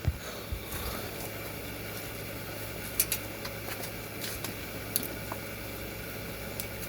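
A few short, sharp clicks and handling noises from an airsoft gun being reloaded by hand, with a pair of clicks about three seconds in and more near five seconds, over a steady low hum.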